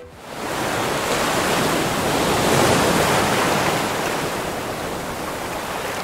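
Ocean surf washing ashore, a steady rushing that swells over the first second and slowly eases toward the end.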